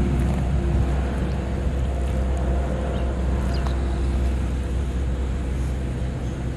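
Steady low rumble with a broad hiss of outdoor background noise, with no sudden events standing out.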